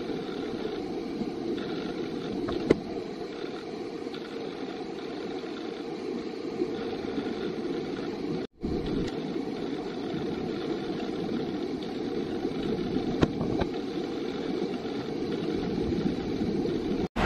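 Steady low rush of a river flowing over rocks and rapids, with a couple of faint knocks. It cuts out for a moment about halfway through.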